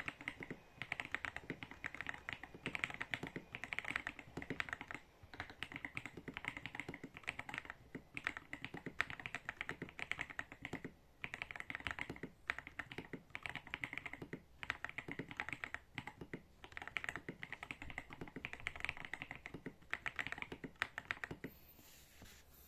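Typing on an Ajazz AK820 mechanical keyboard with Akko POM Brown tactile switches, XDA-profile keycaps and a tape mod: fast, steady keystrokes in runs with short pauses, stopping shortly before the end.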